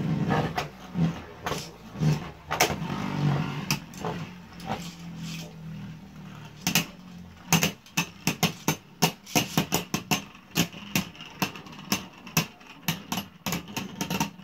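Two Beyblade Burst spinning tops, Kolossal Fafnir and Odax, clacking against each other and the plastic stadium as they spin. The hits come sharp and scattered at first, then fast and frequent in the second half as the tops close in and slow down.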